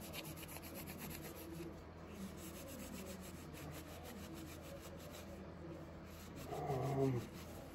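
Soft, faint rubbing of a cleaning wipe over steel pliers, scrubbing at light rust spots.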